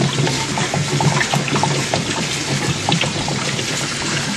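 Steady running water splashing, as from a tap into a sink or tank.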